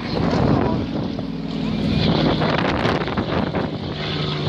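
Single-engine piston propeller aircraft flying past overhead, a steady engine drone, with wind buffeting the microphone.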